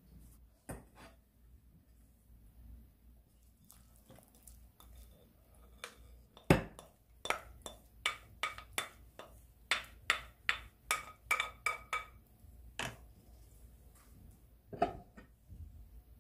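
Glass mixing bowl knocking and clinking against a ceramic baking dish while the sliced-potato and egg mixture is emptied out: one sharp loud knock, then a run of about a dozen clinks, roughly two a second, each with a brief glassy ring. One more knock near the end.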